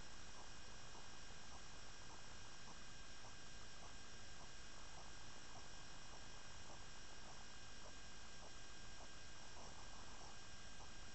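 Steady electronic hum and hiss with several fixed high whines, under faint irregular clicks and crunches from wild boar feeding close by.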